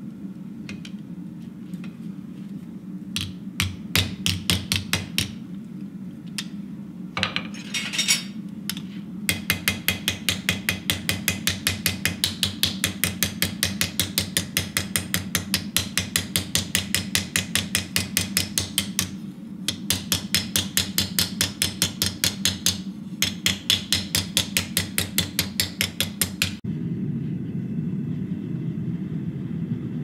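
Hand hammer striking a hot steel leaf-shaped hinge plate on an anvil: a few scattered blows, then a long run of rapid, even blows, several a second, with two brief breaks. Near the end the hammering stops and the steady rumble of a gas forge takes over.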